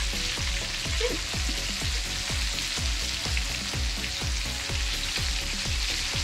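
Fish frying in oil in a pan: a steady sizzling hiss. Underneath it runs an even low beat of about two to three thumps a second.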